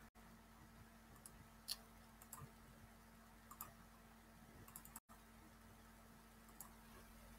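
Near silence: faint room tone with a steady low hum and a few faint, scattered clicks.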